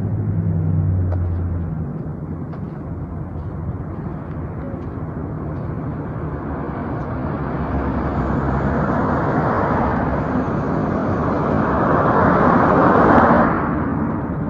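Street traffic: a low engine hum at first, then a vehicle's noise building up and passing close, loudest near the end before dropping off sharply.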